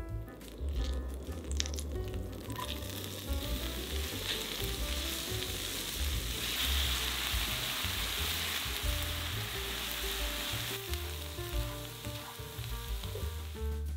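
Chopped onion sizzling in melted butter in a cast-iron frying pan as it is stirred with a silicone spatula. The sizzle builds a few seconds in, is loudest in the middle and dies down near the end, over soft background music.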